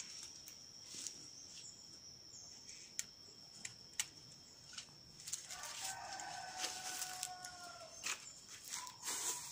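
A rooster crows once, a long call starting about five seconds in, over a steady high insect drone. Before it, a few sharp snips of hand pruning shears cutting dragon fruit from the cactus.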